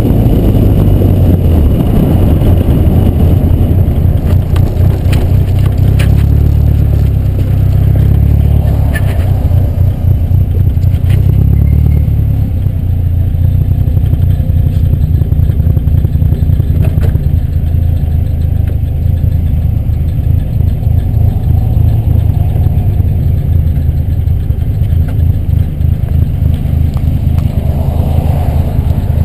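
Loud wind buffeting on a GoPro HD HERO2's microphone in its open-back housing, with no covers over the buttons, on a moving car, along with the car's engine and road noise.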